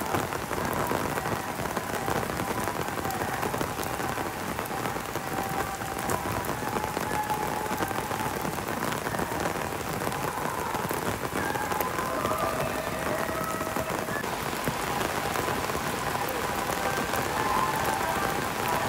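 Heavy rain falling steadily on wet stone paving, an even downpour hiss that keeps up without letting off.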